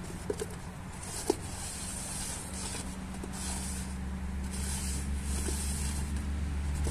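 Upturned cups slid and set down on a wooden tabletop, with a few light taps in the first second or so. Under it a motor vehicle's engine hum grows steadily louder.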